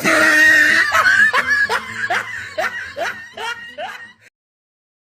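Laughter sound effect: a loud burst of laughing, then a run of about eight short, evenly spaced laughs that fade and cut off about four seconds in.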